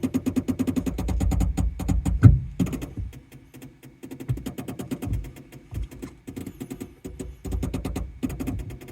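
Rapid clicking and knocking from around the brakes of a Mazda3 after switching to accessory (ACC) power, in stretches that stop and restart, with one heavier knock about two seconds in. It is an abnormal noise that the owner cannot explain.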